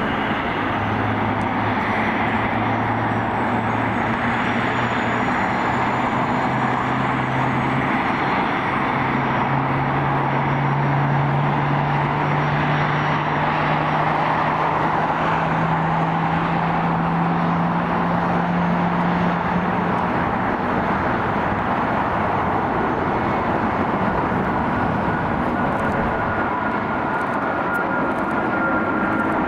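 Jet airliner engines producing a steady, loud rushing noise, with a low hum underneath that rises slowly in pitch for about twenty seconds and then drops away.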